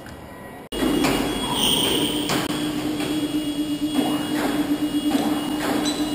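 Steady workshop machinery hum with a loud noisy background, broken by several sharp clanks or hisses at irregular intervals. It starts abruptly just under a second in.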